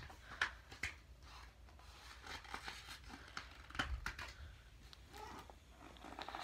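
Faint rustles and a few short taps of a picture book's paper pages being handled and turned.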